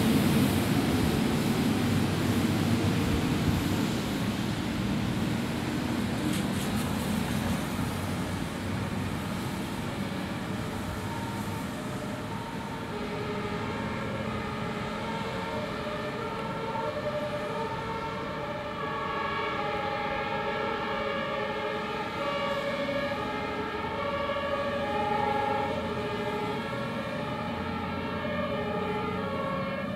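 Fire trucks' engines and tyres going by close at first, then German two-tone sirens (Martinshorn) sounding, alternating steadily between a high and a low note as the trucks drive away.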